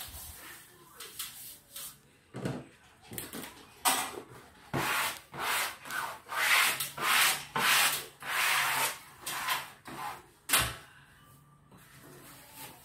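Wallpaper being rubbed down against the wall in a run of short scraping strokes, most of them close together in the middle of the stretch. A single sharp knock comes near the end.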